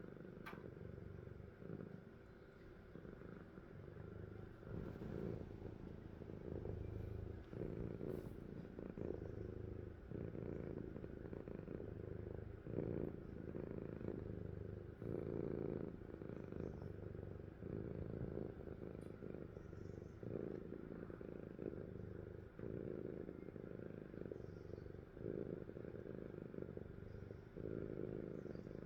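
A sleeping cat's low rumbling breath sounds, swelling and fading in a steady rhythm about every second or two.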